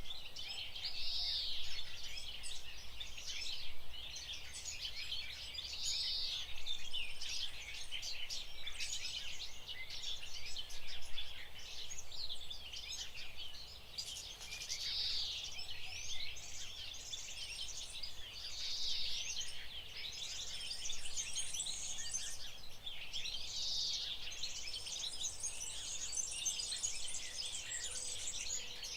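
Many small birds chirping and singing together in a dense, continuous twittering, with one louder song phrase recurring every few seconds.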